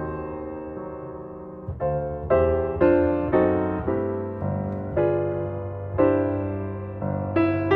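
Background piano music: a slow tune of struck notes that ring and fade, one held chord dying away for nearly two seconds before the notes move on.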